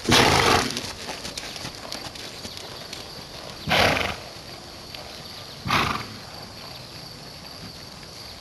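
Paint mare trotting on arena sand, with light hoofbeats, and three loud, breathy snorts: one right at the start, one about halfway through and one two seconds later.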